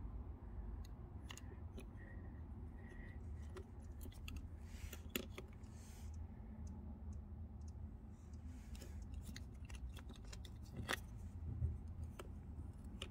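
Scattered small metallic clicks and ticks of a Shimano Deore XT rear derailleur being handled while its jockey wheels are taken off, with a few sharper clicks about five seconds in and near the end, over a low steady hum.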